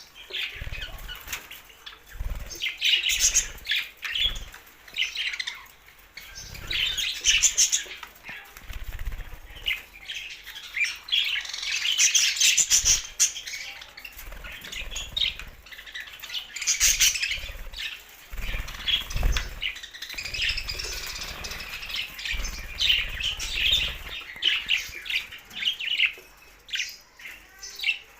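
Budgerigars chirping and chattering in quick, repeated bursts, with low thumps scattered between the calls.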